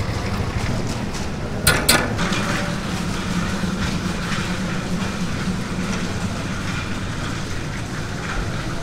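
Steady low hum and rumble of a busy street-food stall, with two sharp metal clicks of serving tongs close together about two seconds in.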